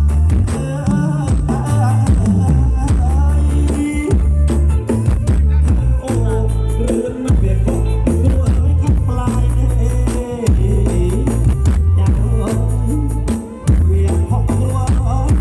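Music with singing, a steady beat and shaker or tambourine percussion, played loud with heavy bass through a large outdoor-cinema sound system being tested.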